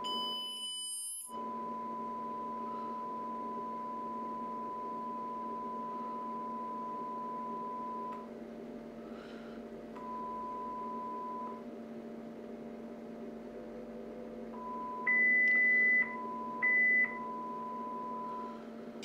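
Sine test tones from a function generator, played through a SYMEF class A/B amplifier board into a test speaker. A steady 1 kHz tone stops and starts again a few times, a brief higher tone sounds at the start, and a louder, higher tone comes in twice near the end, all over a low steady hum.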